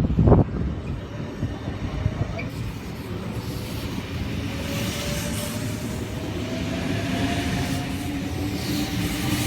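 Sydney Trains S-set electric train pulling away from a platform. Its traction motors whine, rising slowly in pitch as it gathers speed over a steady rumble of wheels on rail.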